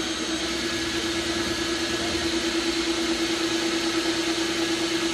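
Handheld power drill running at a steady speed, a loud, even motor whine with a hiss over it.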